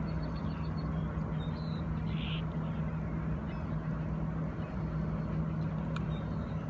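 Steady low hum of a boat motor running, with constant wash of water and wind noise; a short bird call sounds about two seconds in.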